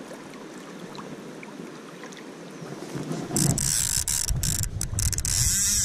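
Soft river background, then from about three seconds in a fly reel's ratchet buzzing loudly, with rubbing and handling noise on the rod and line, as a small trout is hooked.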